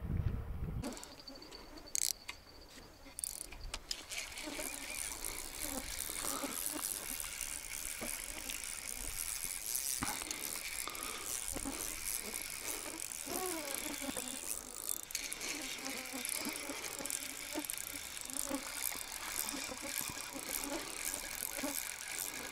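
Spinning-rod fishing reel clicking rapidly and steadily as a hooked fish is played and reeled in. The clicking sets in a few seconds in, after a short stretch of low wind rumble.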